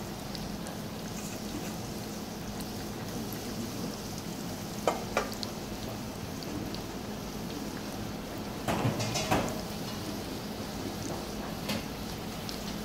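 Breaded eggplant sticks deep-frying in a pot of hot oil: a steady sizzle, with a few short clicks and knocks about five seconds in, around nine seconds, and near the end.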